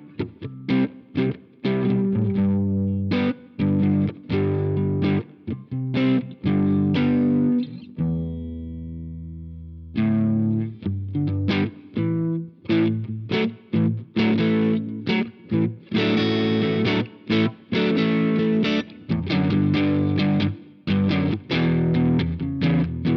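Electric guitar played through an iSet Dumbler Dumble-style overdrive pedal, giving a mild driven crunch. It plays a run of short, chopped chord strokes, and about eight seconds in one chord is left ringing out for roughly two seconds before the chopped rhythm resumes.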